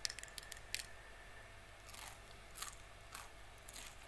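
Close-miked crackling and crunching of a cooked shell-on prawn as it is pulled apart and bitten into: short, sharp shell cracks in a quick cluster at the start and again about two seconds in.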